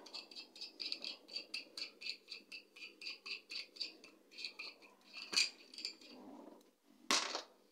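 A spanner working the hex nut of a guitar tuner on the headstock, giving a quick, even run of small metal clicks, about four a second. There is a sharper click about five seconds in and a short, louder noise near the end.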